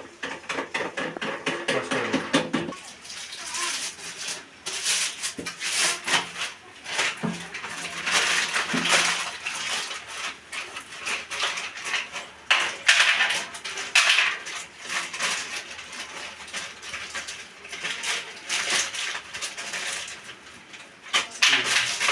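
Irregular clattering, knocking and scraping of hard plumbing fittings and tools being handled, with short hissing or rushing bursts in between.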